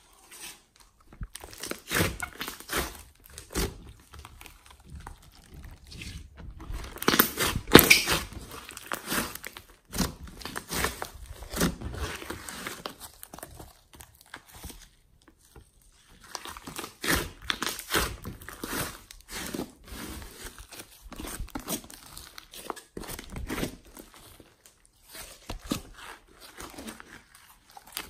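Hands squishing, stretching and folding a large mass of glossy slime mixed with clay and glitter, giving irregular sticky crackles and pops, with a short quiet spell about halfway through.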